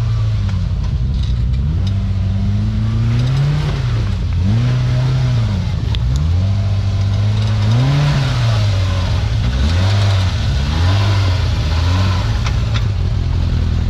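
Off-road vehicle engine running under load, its pitch rising and falling every second or two as the throttle is worked on and off.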